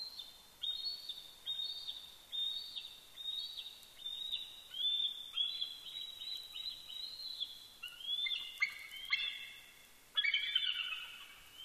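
Bald eagles calling: a long series of high, thin, piping notes, about two a second, that grow denser and overlap near the end.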